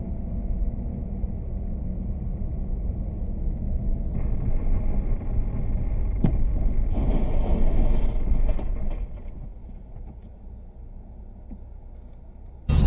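Car cabin rumble of engine and tyres on a snowy road, stronger in the middle, then dying down to a low hum as the car brakes almost to a stop. A single faint click sounds about six seconds in.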